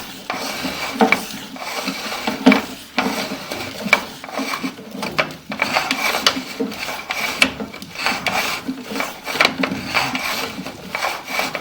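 Sewer inspection camera and its push cable being fed along a sewer line, with continuous irregular scraping, rubbing and clattering knocks.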